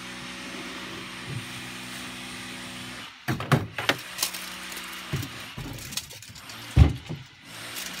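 A steady hum for about three seconds, then a run of knocks and thumps from a cut foam block and kitchen knives being handled in a plastic kayak hull. The loudest thump comes about seven seconds in.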